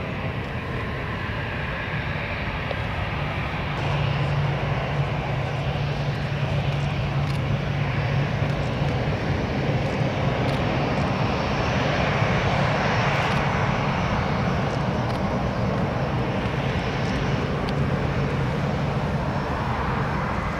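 Airliner engines as a plane passes: a steady broad rush over a low hum, getting louder about four seconds in and peaking about two-thirds of the way through.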